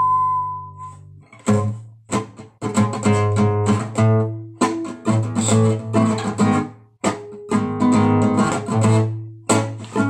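Acoustic guitar strummed in A-flat minor, a rhythmic pattern of chords broken by short pauses, as a song's intro. In the first second a whistled tune ends over a ringing chord.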